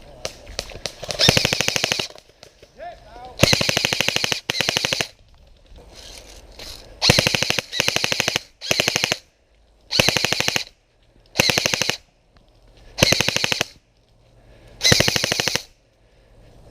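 Airsoft electric rifle firing about ten short full-auto bursts, each a rapid run of shots under a second long, with pauses of one to two seconds between them.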